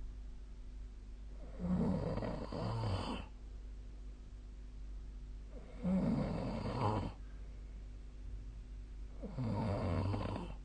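A person snoring in sleep: three rattling snores about four seconds apart, each lasting roughly a second or more, with quieter breathing between them.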